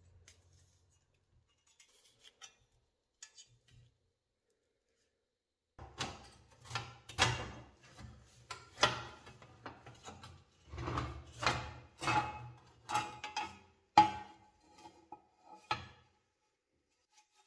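Enamelled steel plate scraping and clanking against the rusty cast-iron frame of an antique meat slicer as it is worked loose and pulled out. A few faint ticks at first, then from about six seconds in a run of irregular rubs and knocks with several sharp metal clanks.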